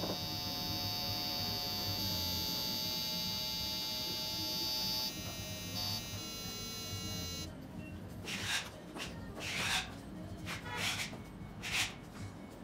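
Plug-in electronic pest repeller giving off a steady, high-pitched electronic buzz of several tones at once. The pattern shifts about five and six seconds in, and the buzz cuts off suddenly about halfway through. Several short rustling bursts follow.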